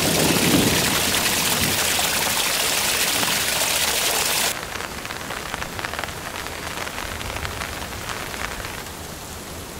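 Water of a small creek splashing down a short drop into a pool, a loud steady hiss. About halfway through it cuts to quieter rain falling on a creek and its overgrown banks, with separate drops pattering.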